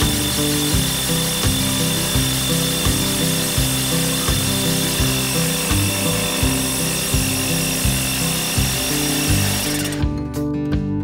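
Background music with a steady beat over the steady grinding of a Bosch SDS-max rotary hammer driving a diamond core bit through brick. The drilling cuts off suddenly about ten seconds in, leaving only the music.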